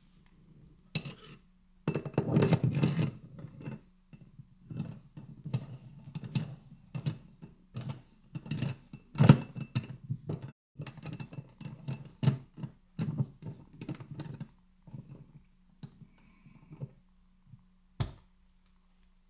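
Steel parts of a Mosin-Nagant rifle bolt clicking, scraping and rattling against each other as they are fitted together by hand, with the cocking piece going onto the spring-loaded firing pin. Irregular metallic clicks come in clusters, the sharpest about nine seconds in, with one last single click near the end.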